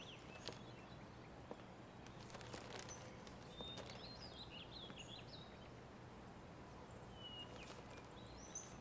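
Faint outdoor ambience of scattered small-bird chirps, short calls with quick pitch glides in two clusters, over a low steady hiss, with a few soft clicks.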